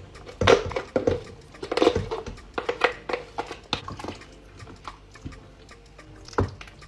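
Kitchen utensil knocking and scraping in a cooking pot, a string of irregular clicks and short scrapes, as ingredients go in and are stirred.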